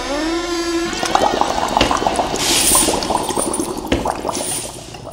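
Child's violin played for spooky effect: a sliding, wavering bowed note in the first second, then scratchy, hissing bow noise with scattered clicks.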